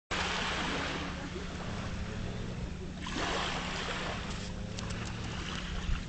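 Small sea waves washing onto a sandy shore, one wash near the start and another swelling up about halfway through, over a steady low rumble of wind on the microphone.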